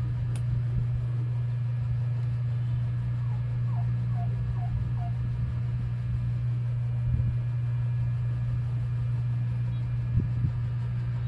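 A steady low hum, with a few faint short chirps near the middle and a soft knock near the end.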